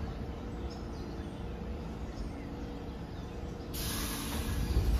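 NYC subway train standing at the platform with its doors closed, equipment humming over a low rumble. Near the end a sudden hiss of air starts, the brakes releasing as the train gets ready to pull out.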